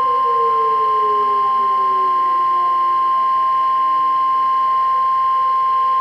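Emergency Alert System attention tone: one steady, loud electronic alarm tone, with fainter lower tones gliding slowly downward beneath it.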